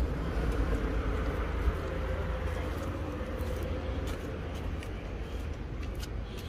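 Steady low rumble of outdoor street ambience with a faint steady hum, and a few light handling ticks.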